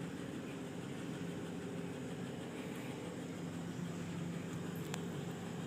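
Steady low background hum with faint even tones, with a single faint click about five seconds in.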